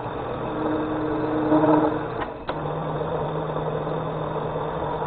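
Machine spindle running a tap into a hole in a steel clamp block: power tapping. There is a steady motor hum with a higher tone about a second in, then a click about two and a half seconds in, after which the running note drops lower.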